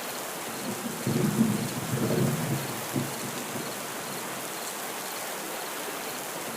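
Steady heavy rain hissing, with a roll of thunder rumbling low from about one second in until about three seconds in, then rain alone.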